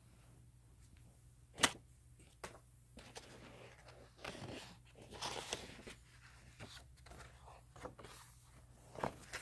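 Paper pages of a book being handled and turned, rustling and sliding, with a sharp tap about a second and a half in and a few small clicks near the end.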